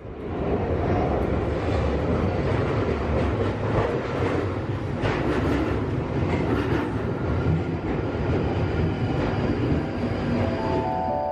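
London Underground tube train running alongside the platform: steady wheel-on-rail noise with a few clacks. Music comes in near the end.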